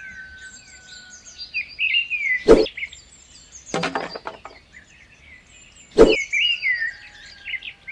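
Birds chirping in short rising and falling calls, with two sharp knocks about three and a half seconds apart and a brief run of clicks between them.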